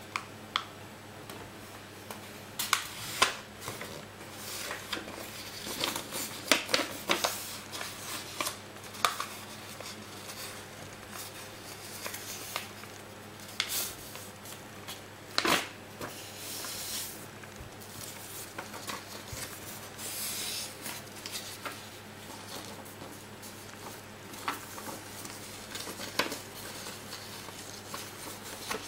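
A sheet of printer paper being folded by hand, with irregular rustling and sharp crinkles as it is creased and pressed flat.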